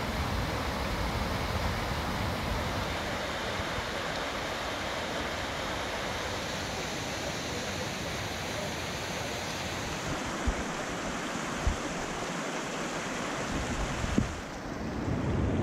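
Steady rushing water of a mountain stream and its waterfalls, a broad even hiss, with a few brief low bumps on the microphone in the second half. The sound drops away abruptly shortly before the end.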